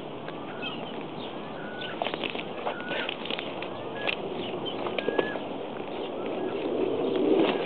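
Short whistled bird calls, each a brief slurred note, repeating every second or so over a steady outdoor hiss. Scattered crackles and snaps come from footsteps through dry brush and litter.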